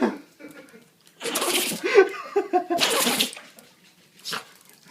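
Boston terrier sneezing twice, about a second and a half apart, with a fainter short snort near the end.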